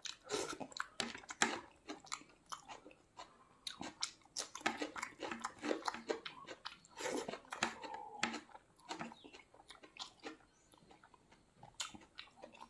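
Close-up chewing and biting of a mouthful of rice, dal curry and chicken liver eaten by hand, with wet mouth clicks and lip smacks coming irregularly and an occasional crunch.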